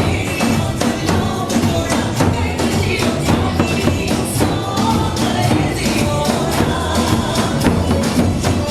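Upbeat music with drums and a tambourine keeping a steady beat, and some singing.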